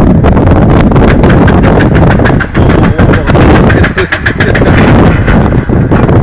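Heavy wind buffeting the microphone, a loud steady rumble broken by many quick sharp clicks.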